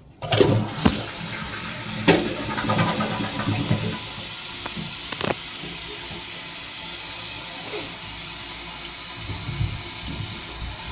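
Kohler Wellworth toilet flushing: a sudden rush of water at the start, loudest for the first four seconds, then settling into the steady hiss of the tank refilling.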